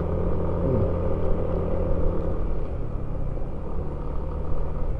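Motor scooter engine running while riding, over low wind rumble on the microphone. Its steady hum fades after about two seconds, leaving mostly rumble.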